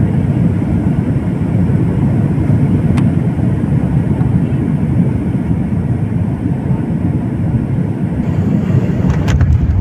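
Steady low rumble of an airliner heard from inside the cabin: the engines and the air rushing past, with a faint click about three seconds in.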